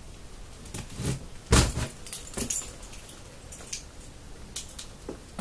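A key slitting packing tape and working open a cardboard box: scattered scrapes and clicks, with one heavier thump about a second and a half in.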